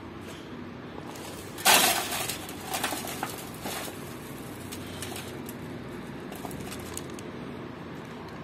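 Dry seed mix poured by hand into a metal pan, the grains rattling against the metal in a loud rush about two seconds in, then a few smaller spills that trail off by about five seconds.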